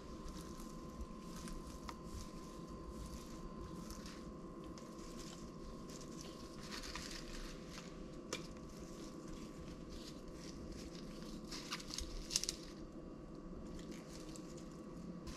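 Crisp rustling and crinkling of fresh lettuce leaves handled with nitrile-gloved hands, picked from a bowl and laid onto tortillas, with softer squishing of crumbled feta being spread, and a sharp tap a little after the middle. A faint steady hum sits underneath.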